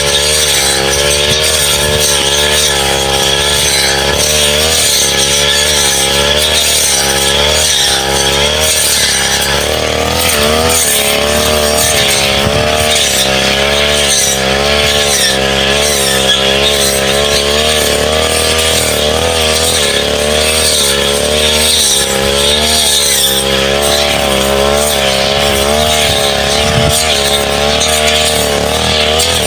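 Petrol brush cutter running at high speed while cutting scrub and saplings. Its engine note wavers up and down about once a second as the blade bites and frees.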